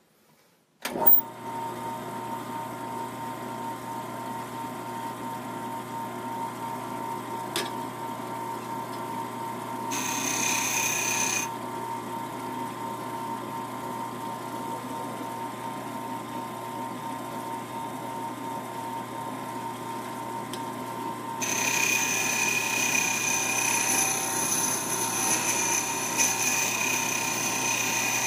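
Small wood lathe switched on about a second in, its motor running with a steady hum. Briefly around ten seconds and again from about two-thirds through, a hand turning tool scrapes against the spinning rosewood workpiece, adding a high, steady rasping whine.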